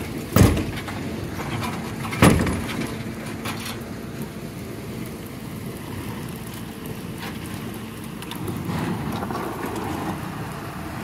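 A motor running steadily with a low constant hum, with two loud knocks, one about half a second in and one about two seconds in, and a few lighter clicks.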